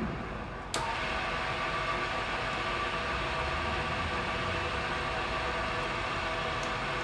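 Bridgeport Model J vertical milling machine's spindle running under power, a steady mechanical hum with a whine. About a second in there is a sharp click, after which it runs louder and steady.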